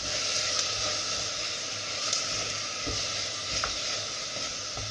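Chicken pieces with garlic, onion and carrots sizzling as they are sautéed in a stainless steel pot over a gas flame, stirred with a spoon that gives a few light knocks against the pot.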